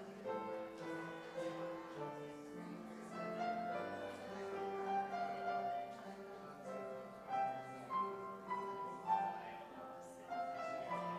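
Grand piano playing a melody over chords.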